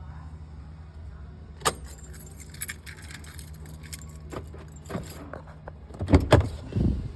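Pickup truck idling with a steady low hum, over scattered clicks and jangling like keys, then a few heavy thumps near the end.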